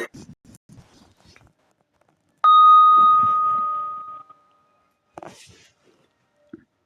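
Countdown timer's end chime: a single bell-like ding about two and a half seconds in, one clear tone that rings and fades away over about two seconds. Faint clicks come before it, and a short rustle follows.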